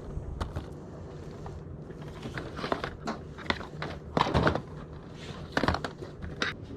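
Objects being handled and shifted: irregular clicks and knocks, with the loudest clatter about four seconds in and again about a second and a half later.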